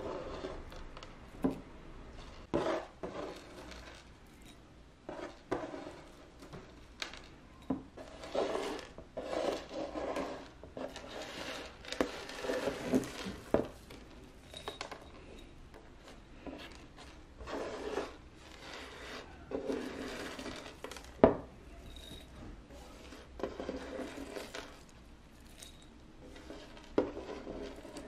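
Kitchenware being handled: scattered light clinks and knocks with rubbing and scraping in between, and one sharper knock about three-quarters of the way through.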